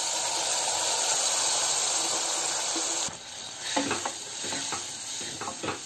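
Soaked, lightly pressure-cooked chana dal frying in hot oil and masala in a saucepan, a loud steady sizzle that stops suddenly about three seconds in. After that, a wooden spoon stirring the dal, with a few scrapes and knocks against the pan.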